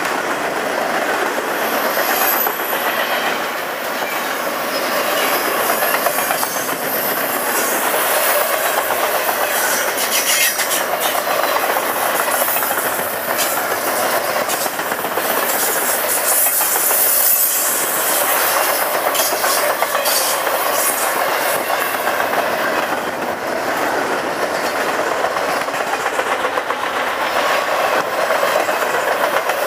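Intermodal freight train's double-stack container cars and trailer flatcars rolling past close by: a steady rumble of steel wheels on rail, with repeated clicks as the wheels cross rail joints and a few brief high squeals.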